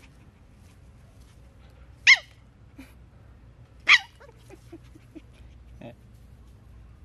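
Puppy giving two loud, high-pitched yelping barks that fall in pitch, about two seconds apart, followed by a few faint short sounds.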